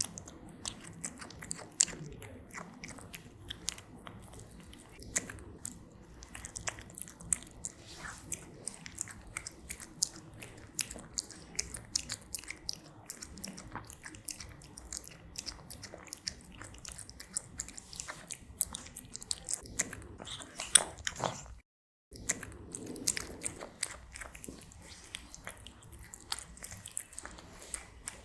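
A cat eating, close-miked: a steady run of irregular sharp chewing clicks and wet mouth sounds. The sound drops out completely for a moment about three-quarters of the way through.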